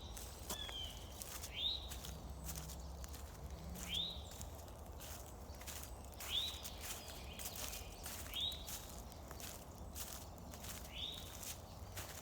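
Footsteps along a woodland trail, while a bird repeats a short up-swept call about every two seconds.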